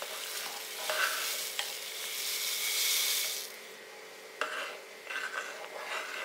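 Roasted wheat vermicelli sliding off a plate into a pot of boiling milk with a rustling hiss that stops about three and a half seconds in. Then a metal ladle stirs it in, clicking and scraping against the metal pot.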